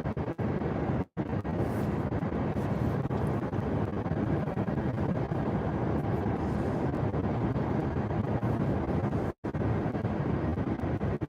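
Steady road noise of a car driving, a low rumble with no distinct events, cutting out briefly twice.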